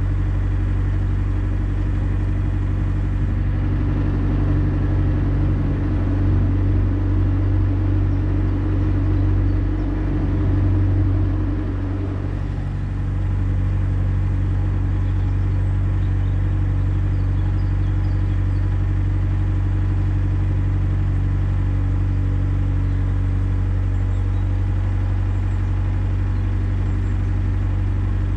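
Narrowboat's diesel engine running steadily under way, a low even throb. It runs louder for several seconds partway through, dips briefly, then settles back to its steady note.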